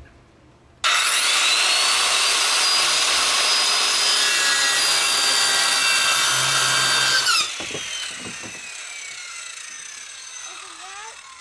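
Circular saw started up with a quickly rising whine, running loud at full speed through wood for about six and a half seconds, then released, its blade winding down with a long, slowly falling whine.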